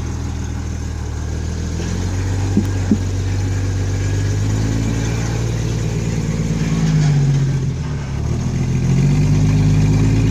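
Off-road vehicle's engine running on a trail, its pitch rising and falling with the throttle; it drops off about three quarters of the way through, then picks up again. Two short sharp knocks come close together a little before a third of the way in.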